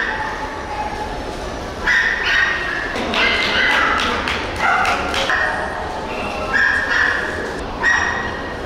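Dogs yipping and barking: a string of short, high-pitched barks that starts about two seconds in and keeps repeating.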